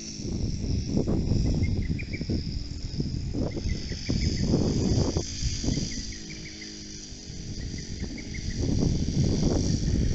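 Wind buffeting the microphone in uneven gusts over a steady high drone of insects, with small clusters of faint chirps. When the wind drops, about six seconds in, the faint hum of a distant model aircraft engine comes through.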